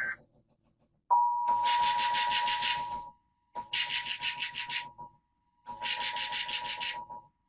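Emergency Alert System attention signal before a special marine warning: a steady two-tone alert near 850 Hz and 960 Hz that starts about a second in. A harsh, rapidly pulsing buzz sits over it in four bursts of about a second and a half each, with short breaks between.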